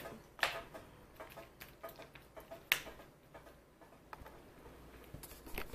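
Faint, scattered clicks and taps at irregular intervals, with one sharper click a little under three seconds in.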